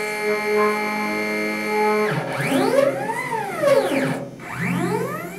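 BF45 CNC mill's axis drive motors, a steady multi-tone whine for about two seconds, then pitch glides that rise and fall as the axis speeds up and slows down, with another rising glide near the end as the move runs the other way.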